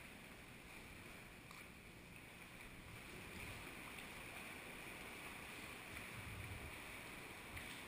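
Faint, steady water noise of a sea kayak being paddled slowly, with a couple of light ticks from the paddle.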